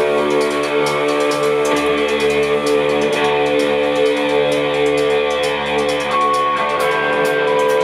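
A live rock band playing: two electric guitars ringing sustained, layered chords over a drum kit with steady cymbal hits. A higher guitar note comes in about six seconds in.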